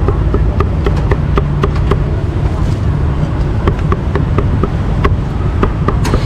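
Cleaver chopping roast meat on a wooden chopping block: quick, uneven knocks, about three or four a second, over a steady low rumble of traffic.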